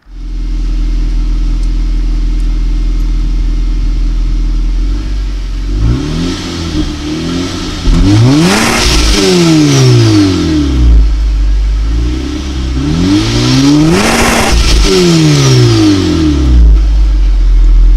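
Supercharged 2014 Honda Civic Si's four-cylinder engine idling on its stock catalytic converters and stock exhaust, then revved hard twice, each rev climbing and falling back to idle. The run is loud, about 111 decibels on a sound meter.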